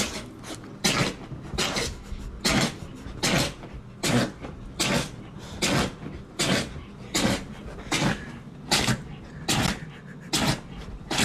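A dog sneezing over and over, a sharp snort about every eight-tenths of a second, in an even run of about fourteen sneezes.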